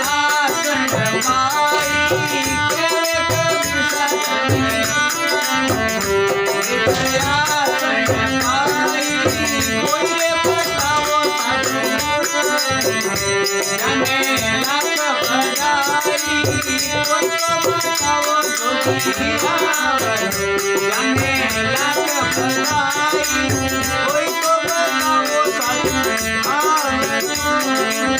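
Instrumental interlude of Rajasthani folk devotional music: a melodic instrument playing a winding tune over steady rhythmic percussion with a jingling, rattle-like beat.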